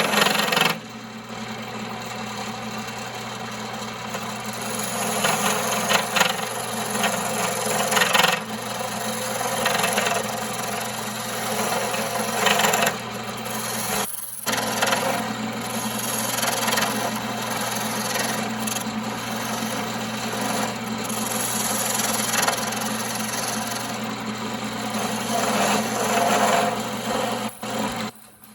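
1939 Pow-R-Kraft wood lathe running with a steady motor hum while a tool works against the spinning firewood blank, a continuous scraping that swells and eases. It breaks off briefly about halfway through and again near the end.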